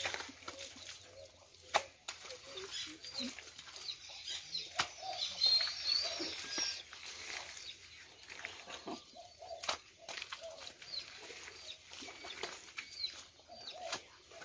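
Wet mud being slapped and packed by hand into a wooden adobe brick mould, with a few sharp slaps, while small birds chirp repeatedly.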